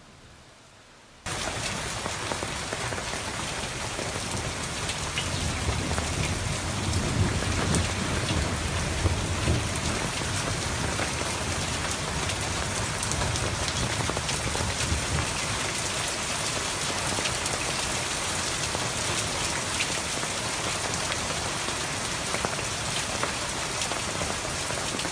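Heavy rain pouring down steadily with a fine patter of drops, coming in suddenly about a second in. A low rumble of thunder rolls under it for about ten seconds in the middle.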